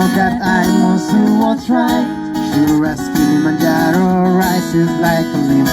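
Music: acoustic guitar strumming with a melody over it.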